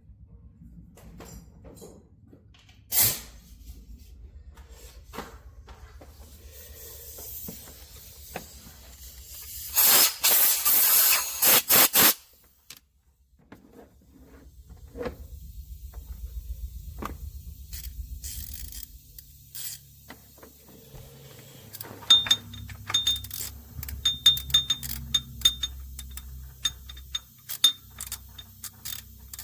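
Hand-tool work on an engine's timing chain cover: a loud hiss in several quick bursts about ten seconds in, and from about two-thirds of the way through many small metallic clicks and clinks.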